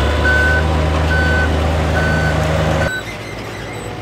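Forklift backing up: its reverse alarm beeps a little more than once a second, four times, over the steady hum of its engine. Both cut off suddenly about three seconds in, leaving a quieter steady outdoor noise.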